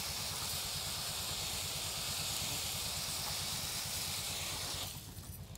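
Grain pouring in a steady stream from the outlet hatch of a metal grain storage bin onto a heap on a cloth, an even hiss that stops near the end.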